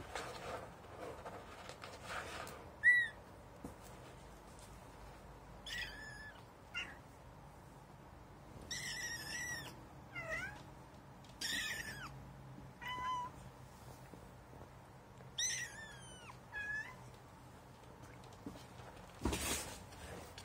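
Very young kitten mewing repeatedly, about ten high, thin cries, some short and some drawn out, with a brief scratchy rustle near the end.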